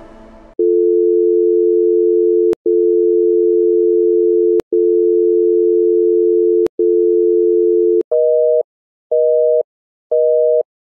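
Telephone dial tone, a steady two-note hum broken by a few sharp clicks. About eight seconds in it changes to a busy signal: a higher two-note beep repeating about once a second, three times.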